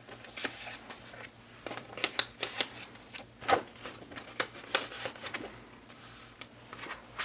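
Paper photocards and postcards handled and flipped through by hand: an irregular run of short slides, taps and rustles.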